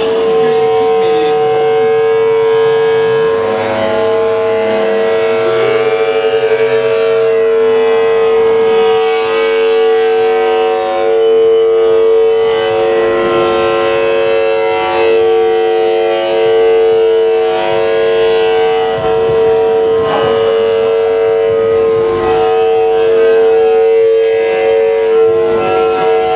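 Electromagnetic emissions picked up by a hand-held copper-wire loop antenna, heard as a loud, steady electrical tone with a stack of overtones that breaks off briefly a few times.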